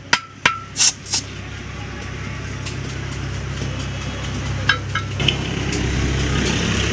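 A steel tyre bar clinks sharply against a steel truck wheel rim a few times in the first second. This is followed by a steady rush of compressed air from the hose at the valve, over a low mechanical hum, growing slowly louder, with two light metal clicks about five seconds in.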